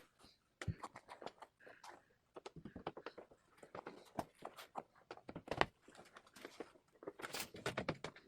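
Irregular light clicks and taps of wooden workpieces and tools being handled during a glue-up, with a slightly louder knock a little past the middle and a busy cluster of taps near the end.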